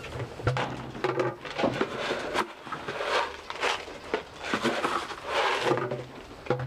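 Irregular rustling and crackling with a few sharp knocks, as things are handled while cat food is set out, with a low hum that comes and goes.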